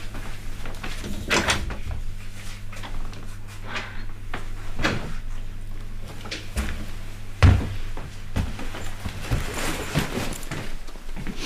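Scattered knocks and thumps, the loudest about seven and a half seconds in, over a low steady hum that cuts off with that loudest knock.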